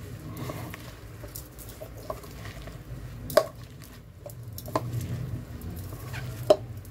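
Hands kneading and squeezing chopped banana blossom with salt in a bowl: a steady wet squishing and rustling as the salt works out the bitter sap. Two sharp clicks against the bowl stand out, about three and a half and six and a half seconds in.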